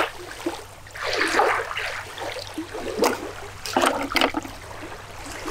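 Small river waves lapping and washing onto a sandy shore, swelling strongly about a second in. A few sharp clicks of small tackle being handled in a plastic tray come about three to four seconds in.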